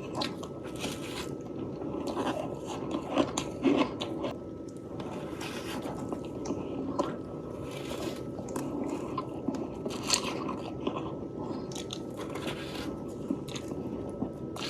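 Someone biting and chewing soft freezer frost close to the microphone: a run of irregular crunches, with a few louder bites about three to four seconds in. A faint steady hum runs underneath.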